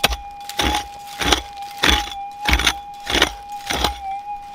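Pick strikes into hard-packed gravel, about one and a half blows a second, over the steady hum of a gold prospecting metal detector's threshold tone.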